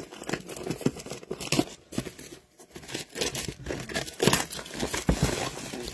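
A shrink-wrapped Extended Series trading-card blaster box being cut and torn open by hand: plastic wrap crinkling and cardboard tearing in irregular rustles and clicks.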